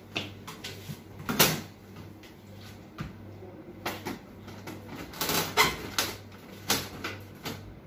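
Plastic casing of an HP LaserJet Pro 200 color laser printer being handled: several hollow knocks and clatters, the loudest about a second and a half in and a cluster around five seconds in, over a faint steady low hum.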